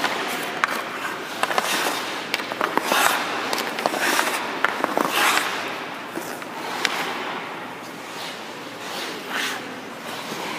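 Hockey skate blades scraping across ice in repeated hissing strokes as a goaltender pushes across his crease, with scattered sharp clicks and knocks on the ice.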